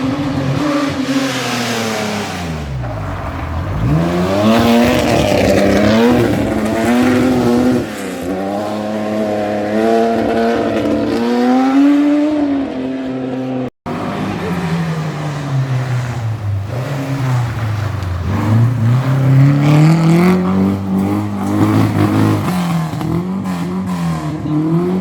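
Rally car engines revving hard on a stage. The engine note drops steeply, then climbs and steps through the revs. After a sudden break just over halfway, another engine note falls and rises again.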